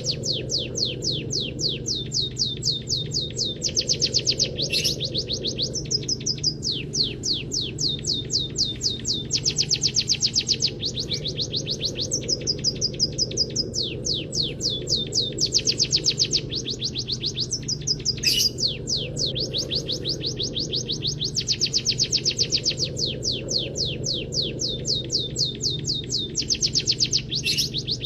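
Munia song with canary-style phrases: fast runs of high, descending chirps alternating with buzzy trills, the pattern repeating every few seconds over a steady low hum.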